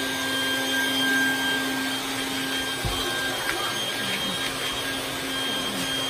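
Vacuum cleaner running steadily with a constant whine over its rush of air, used to pull grit out of alpaca fleece before shearing.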